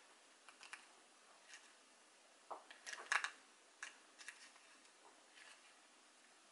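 Crisp, dry meringue cookies clicking and scraping against each other as they are handled and set down among other meringues: a scattering of light clicks, densest and loudest about halfway through.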